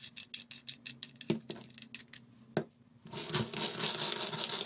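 Parts of a metal hand-press sev maker being handled and fitted together: a string of separate small metal clicks and taps. About three seconds in, these give way to a continuous scraping rattle as the aluminium parts rub against each other.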